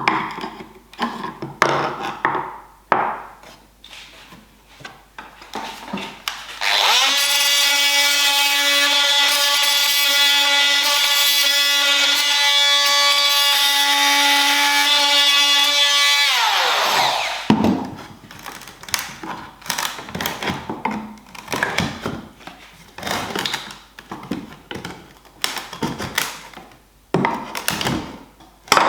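Knocks and clatter of wood and tools being handled. About seven seconds in, an electric power tool starts up and runs steadily at one pitch for about ten seconds, then winds down with a falling pitch as it is switched off. The handling knocks then resume.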